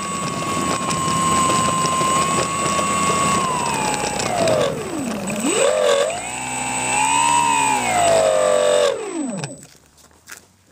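Electric motor and propeller of a Skywalker FPV plane on the ground, whining at a steady high pitch over a rough rattly noise. The whine drops low about halfway through, rises again, then winds down and stops as the throttle is cut.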